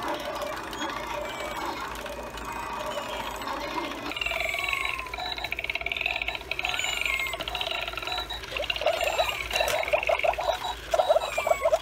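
Battery-operated animated skeleton animal figures playing their electronic sound effects through small built-in speakers while their green lights glow. A warbling high chirp starts about four seconds in, and rapid, squeaky repeated pulses grow louder near the end.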